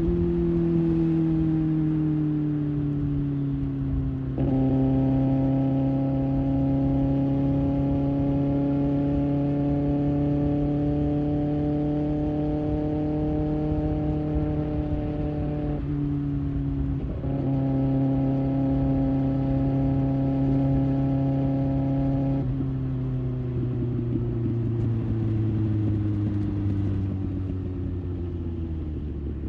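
Kawasaki Ninja ZX-6R's inline-four with an aftermarket IXIL exhaust running on the road at a steady engine speed. The note gets louder about four seconds in as the throttle opens, eases off briefly around two-thirds of the way through, then sinks slowly near the end as the engine slows.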